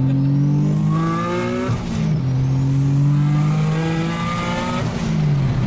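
Single-turbo VQ35HR V6 in a Nissan 240SX under hard acceleration: the revs climb, fall at a gearshift about two seconds in, climb again, and fall at another shift near the end. A high whine rises along with the revs.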